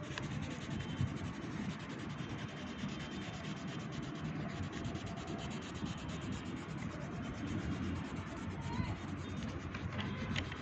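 Yellow colour being rubbed back and forth on workbook paper, shading in a picture: a steady dry rubbing made of many quick strokes.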